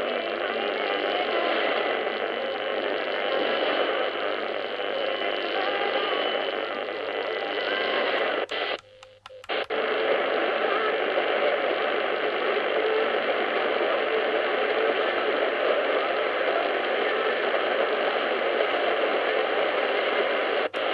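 Qodosen SR-286 portable radio's speaker playing a long-wave AM station on 153 kHz (Radio Algérie), heavy with static hiss and the programme faint underneath. About nine seconds in the audio drops out for about a second as the radio is retuned. It then comes back on 171 kHz, just as noisy.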